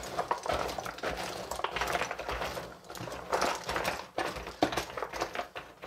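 Wooden jigsaw puzzle pieces, thin three-ply wood, clicking and clattering against each other as a hand sifts through them in their box, in quick irregular small knocks.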